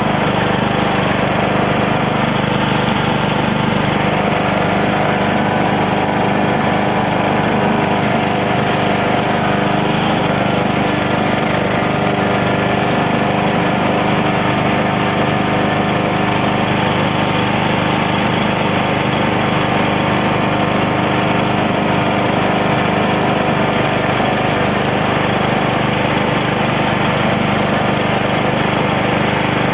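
Husqvarna lawn tractor engine running steadily under load as it pushes a wooden plow blade through deep snow.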